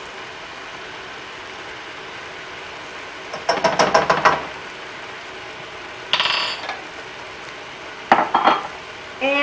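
Chicken strips sizzling quietly in a dry skillet, with three short bursts of kitchen clatter about four, six and eight seconds in, as barbecue sauce is squeezed in from a bottle and utensils clink against the pan and dishes.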